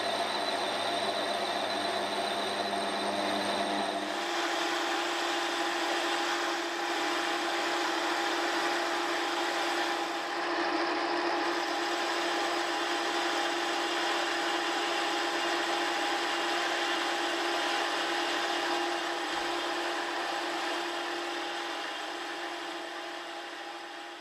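TV-4 benchtop metal lathe, its three-phase motor run from 220 V mains, running under load as a tool turns a titanium bar: a steady mechanical whine over cutting noise. The tones shift about four seconds in, and the sound fades out near the end.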